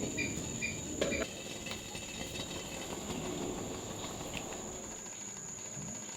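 Night insects, crickets, with a steady high-pitched drone. A quicker chirp repeats about two or three times a second and stops a little after a second in, and there is a single short knock about a second in.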